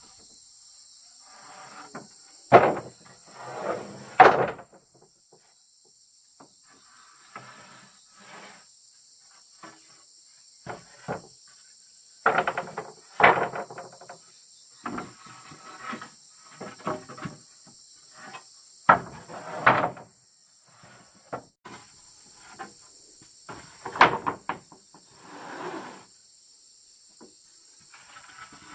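Irregular knocks, clatters and scrapes of wood being handled and set down during building work. Underneath is a steady high buzz of insects chirping.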